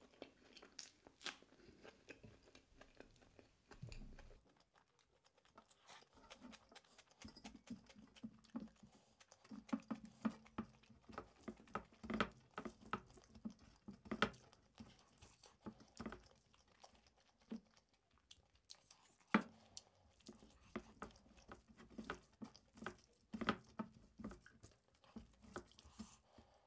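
Close-miked eating by hand: chewing mouthfuls of rice and egg curry with green chilli, with many short wet clicks and smacks, and fingers mixing rice against a metal plate.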